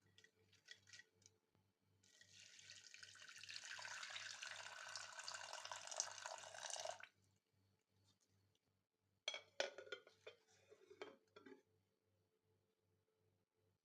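Water poured steadily for about five seconds, starting about two seconds in and stopping abruptly, followed a couple of seconds later by a few light knocks and clinks.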